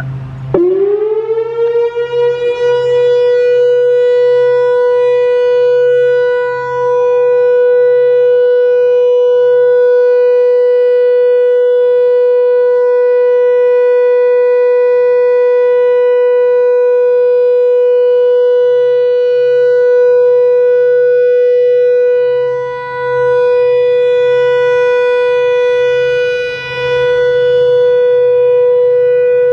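Whelen WPS-4004 electronic outdoor warning siren starting its Alert signal. Its tone sweeps up within about a second to a steady high pitch and holds there, dipping briefly in level three times.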